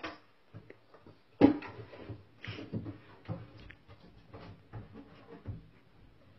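Wooden dresser drawer knocking and scraping as a cat works it from inside the chest. There is a sharp knock about a second and a half in, then a run of smaller knocks and rubs as the drawer slides shut.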